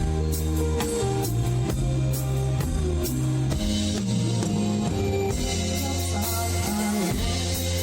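Live band music played loud through the PA: a drum kit keeps a steady driving beat under electric bass and guitar, in an instrumental passage of a Thai mor lam medley.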